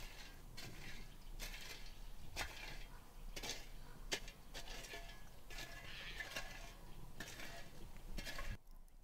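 Cooking utensils knocking, clinking and scraping against a pot or pan, with a sharp knock about once a second. The sound cuts off abruptly shortly before the end.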